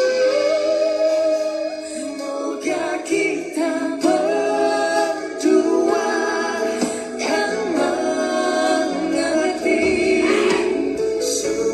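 A ballad sung with instrumental backing; the voice holds and bends long notes.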